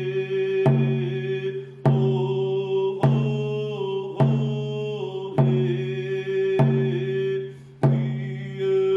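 A drum struck in a slow steady beat, about one stroke every 1.2 seconds, seven strokes in all, under a voice chanting long held notes.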